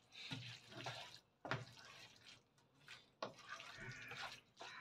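Faint, wet squelching of tagliatelle being tossed in a creamy spinach sauce in a frying pan, with a couple of short clicks of the utensil against the pan.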